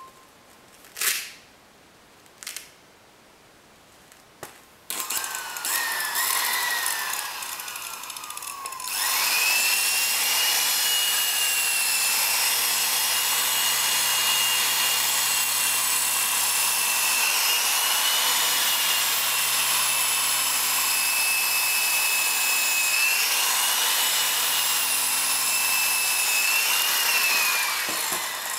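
Electric polisher with a buffing wheel spinning up after a few light clicks, then from about nine seconds running at full speed with a loud, steady high whine that wavers slightly as it buffs the lacquered wood panel to a gloss. Near the end the whine falls in pitch as the motor winds down.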